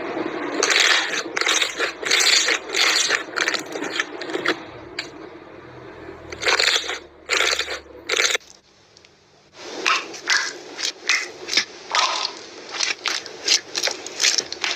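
Hands pressing and squeezing slime, a run of short squishes about two a second. After a near-silent break of about a second past the middle, quicker squishes of about three a second follow.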